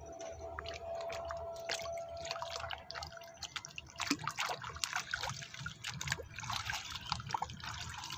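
Water splashing and dripping as a plastic toy aircraft carrier is swished and rubbed by hand in shallow muddy water. A faint steady whine sounds through the first three seconds.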